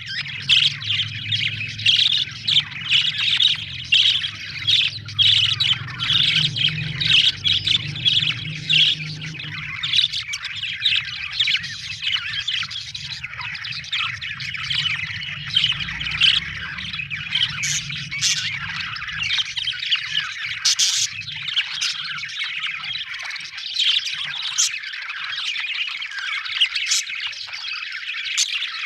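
A flock of budgerigars chattering nonstop with dense chirps, warbles and squawks. A low hum runs underneath and fades out about two-thirds of the way through.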